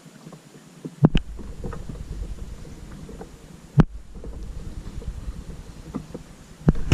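Kayak on the water, with low wind rumble on the microphone starting about a second in. Three sharp knocks come about a second in, near the middle and near the end, with fainter ticks between them.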